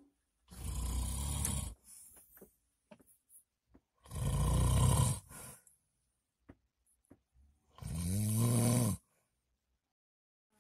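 A person snoring: three long snores about four seconds apart, the last with a voiced tone that rises in pitch.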